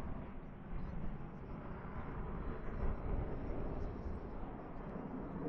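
Distant jet rumble of the F-22 Raptor's twin F119 turbofan engines, a steady noisy roar with no clear tone as the fighter flies far off.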